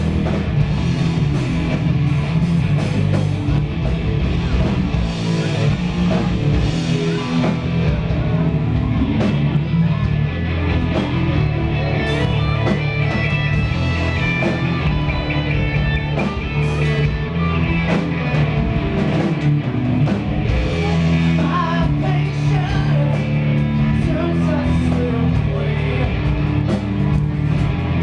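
Live rock band playing loudly: distorted electric guitars, bass guitar and a drum kit, with a voice singing over them.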